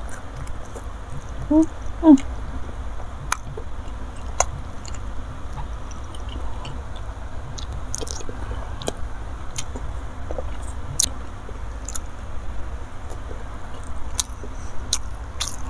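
Close-miked chewing of a mouthful of balado fish roe and rice, with wet mouth clicks and smacks scattered throughout. Two brief hums from the eater come about one and a half and two seconds in, over a steady low hum.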